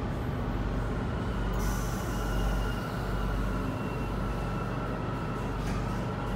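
Metro train car running as it pulls into a station: a steady low rumble with a faint, even whine from the drive. A hiss of air starts about a second and a half in and fades.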